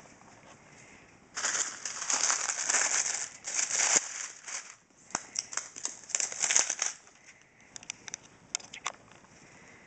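Packaging being crinkled and torn off the box of a power supply: two long bursts of crackling, then a few short clicks and rustles.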